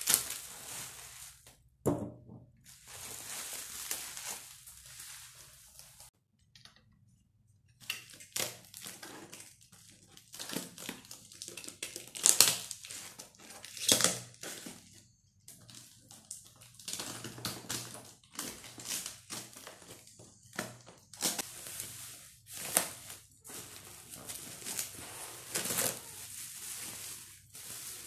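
Bubble wrap and plastic packaging crinkling and rustling as glass jars and a food container are unwrapped by hand, in irregular bursts with a brief pause, plus an occasional knock.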